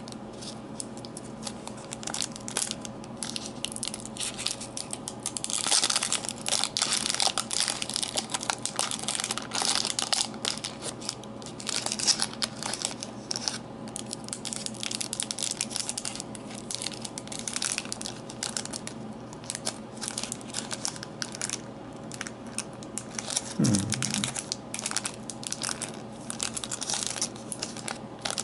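Crinkly wrapper of a trading card pack being handled and torn open: dense, irregular crackling and tearing, busiest in several short spells.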